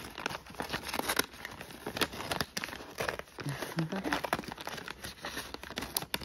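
Scissors cutting through the gift-wrap paper of a parcel, the paper crinkling and crackling in irregular snips and rustles throughout.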